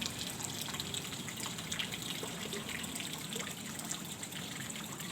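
Stream water trickling steadily, with many small drips and splashes.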